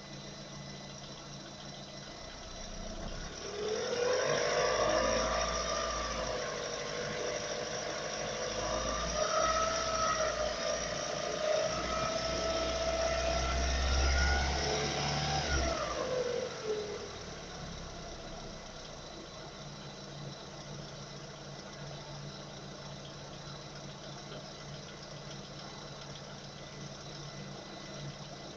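Car engine idling, then revved up about three seconds in and held at raised revs for around twelve seconds before dropping back to a steady idle.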